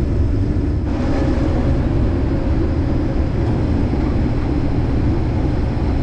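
Case IH 2388 combine running steadily while harvesting corn: a continuous engine and machinery drone heard from inside the cab.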